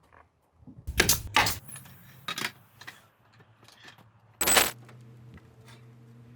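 A few short clicks and clinks of hard objects being handled, with a louder knock about four and a half seconds in, then a faint steady low hum.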